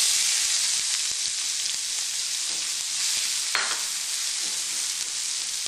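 Chopped onions dropped into hot oil in a skillet with cumin seeds and asafoetida, frying with a loud, steady sizzle that starts suddenly as they go in. A short scrape of stirring comes about three and a half seconds in.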